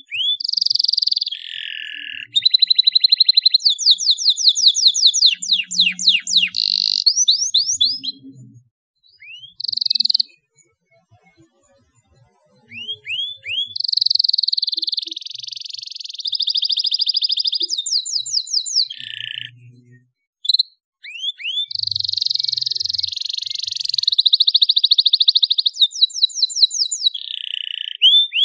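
Domestic canary singing in full voice: three long, high-pitched phrases of rapid trills and falling whistled sweeps, separated by short pauses.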